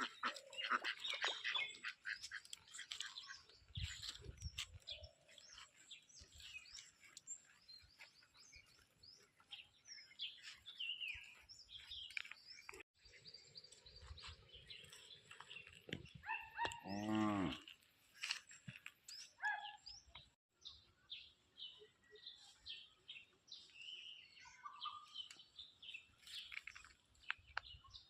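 Birds chirping and calling, with many short high chirps throughout. About two-thirds of the way in, one louder, lower animal call lasts about a second.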